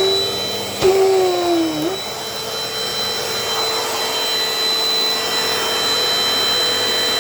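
Dirt Devil Dynamite Plus vacuum cleaner running steadily: a constant rush of air with a high, even motor whine, and a short click about a second in.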